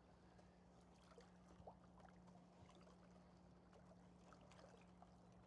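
Faint sloshing and small knocks of a wooden boat oar stirring sugar into hot water in a 5-gallon plastic bucket, mixing 1:1 sugar syrup, over a faint steady hum.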